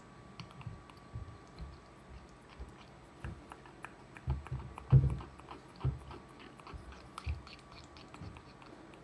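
Parrot chewing and biting close to the microphone: irregular crunching clicks with a few soft thumps, the loudest about five seconds in.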